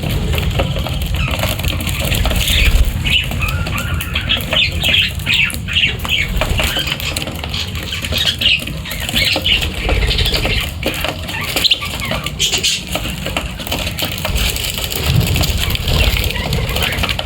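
Birds chirping in rapid short calls, with wings fluttering and rustling.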